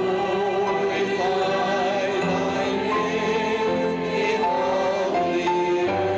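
A congregation singing worship music in long held notes, with instrumental accompaniment.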